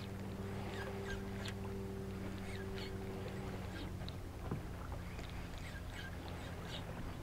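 A small boat's motor running with a steady hum; its tone shifts slightly about four seconds in. Faint scattered ticks and knocks sound over it.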